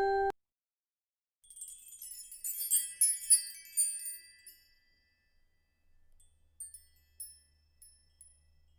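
High, tinkling chime-like music: a tune on glockenspiel-like mallet percussion stops just after the start, then a cluster of sparkling high chimes comes a second or so later, followed by a few scattered soft pings near the end.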